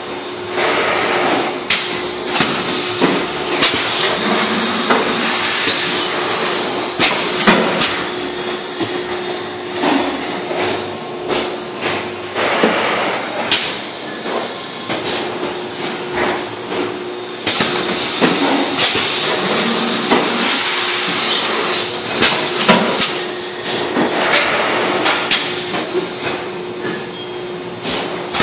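Industrial plastics-processing machinery running: a constant hiss of air with many sharp clanks and knocks at irregular intervals, over a steady hum that drops out for a couple of seconds about halfway through.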